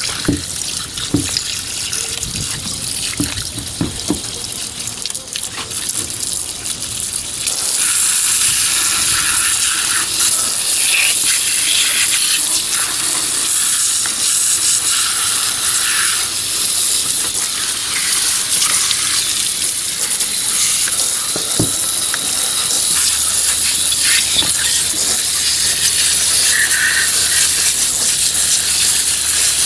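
Running water washing the dirt out of a disassembled boat bilge pump, with a few knocks of the parts being handled at first. The water gets louder and steadier about seven seconds in.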